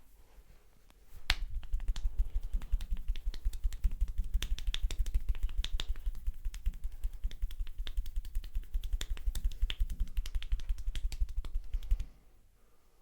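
Rapid percussive hand-tapping massage (tapotement), hands beating quickly and evenly on the body with a dull thud and a slap at each stroke. It starts about a second in and stops suddenly near the end.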